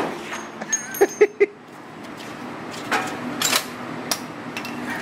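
Tail of a big-bore rifle shot fading away, then three quick metallic clinks about a second in, followed by scattered clicks and knocks as the rifle is handled at the bench.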